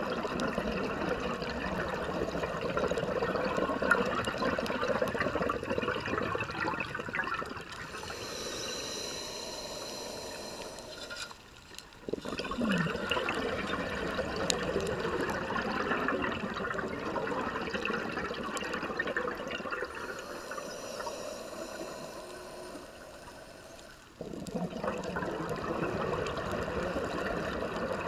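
Scuba diver breathing through a regulator underwater: long stretches of exhaled bubbles, broken twice by a quieter hissing inhale, about a third of the way in and again about three quarters of the way through.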